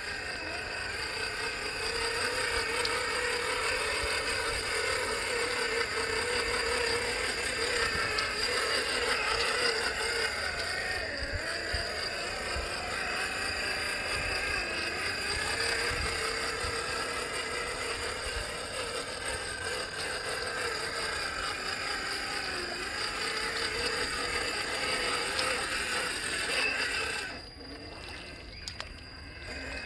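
Electric 550 brushed motor and geartrain of a 1/10 scale RC rock crawler whining as it drives over rocks, the pitch rising and falling with the throttle, then dropping away sharply near the end.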